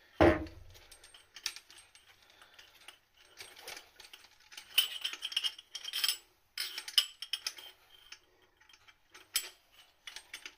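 Plastic sink waste-trap fittings being handled and pushed together: a sharp knock about a quarter second in that rings briefly, then scattered clicks and clatter of small parts.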